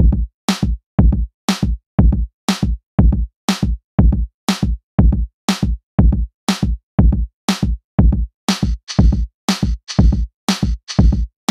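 Electronic background music with a steady drum-machine beat, about two beats a second. A hissing cymbal-like layer joins about two-thirds of the way through.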